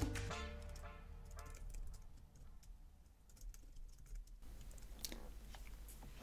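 Faint computer-keyboard typing: scattered single key clicks, most of them in the second half. Background music trails off over the first second or so.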